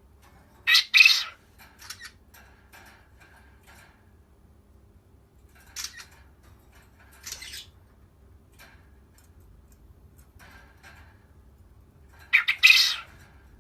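Japanese quail calling: a loud, harsh call about a second in, two shorter calls around six and seven seconds, and another loud call near the end, with faint small chirps in between.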